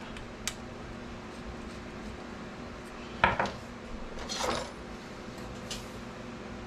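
Small metal tattoo-machine parts and tools being handled: a few light clicks and clinks, with a sharp click a little after three seconds and a brief clinking rattle just after it.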